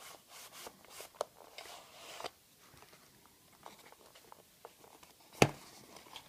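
A knife's presentation packaging being opened by hand: faint rubbing and scraping for the first two seconds or so, then a single sharp click near the end.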